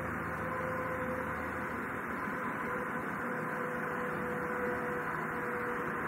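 Steady outdoor background noise: an even, unbroken hiss with a faint low hum and a faint intermittent tone underneath.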